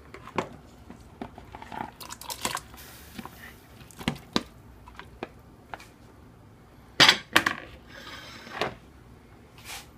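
Raw pork pieces being spooned from a plastic bowl into a pot of water, with scattered knocks and clicks of a plastic spoon against the bowl and pot, and splashes. The loudest knock comes about seven seconds in.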